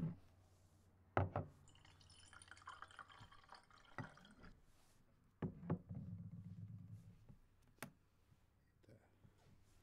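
Tea poured from a porcelain teapot into a small tea bowl, quiet. A sharp clink of china about a second in, then a pouring trickle lasting about two and a half seconds. A few light clinks of crockery follow.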